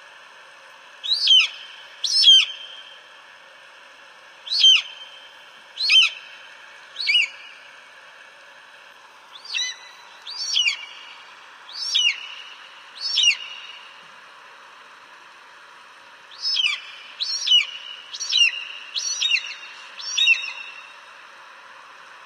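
Eagle calling: short, high, piercing notes that slide downward, given in series of two to six with pauses between, over a steady background hiss.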